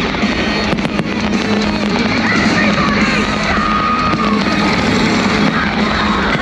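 Loud show soundtrack music over a public address system, mixed with fireworks going off, including a few sharp bangs about a second in.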